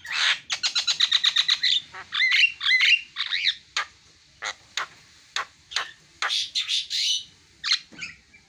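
Javan myna (jalak kebo) singing: a harsh squawk, then a fast rattling run of short clicking notes, whistled notes sliding up and down, then scattered sharp calls and a raspy screech near the end.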